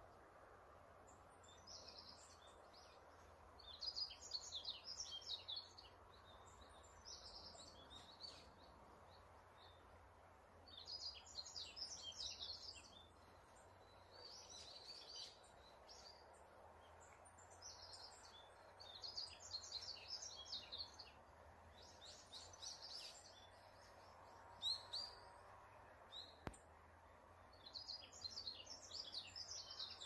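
A small songbird singing short, high twittering phrases, repeated every few seconds, over a faint steady hiss of forest ambience.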